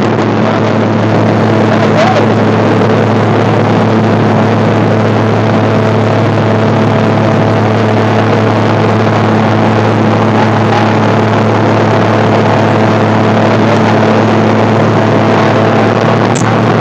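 Motorboat engine running steadily with a constant hum, under a loud, even rushing noise.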